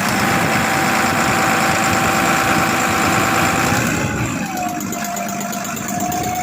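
Deutz TD226B six-cylinder diesel running just after starting, with a steady high whine over it that drops in pitch about four seconds in.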